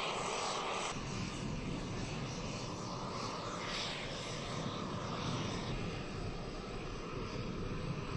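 Jet aircraft engine noise: a steady rushing drone of a plane in flight, with a change in tone about a second in.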